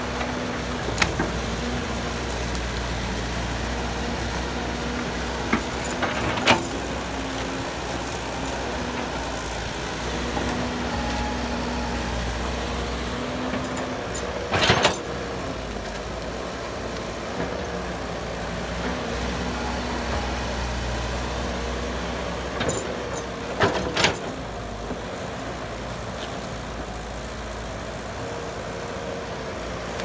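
Old Caterpillar hydraulic excavator's diesel engine running steadily as it digs, its hum rising and falling with the hydraulic load. A few sharp metallic knocks from the bucket and boom, the loudest about halfway through and again near 24 seconds.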